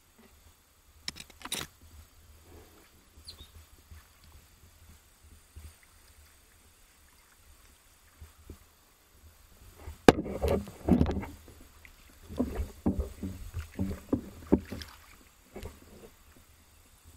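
Water splashing and sloshing in a shallow creek. It is faint and scattered at first, then becomes a louder run of irregular splashes for about five seconds, starting around ten seconds in.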